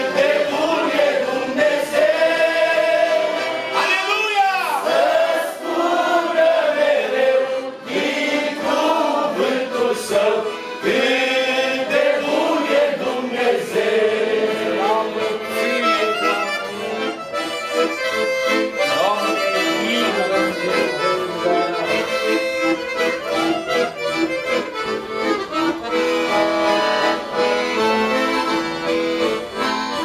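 Roncalli piano accordion playing a slow hymn tune over held chords, with a man's voice singing over it at times.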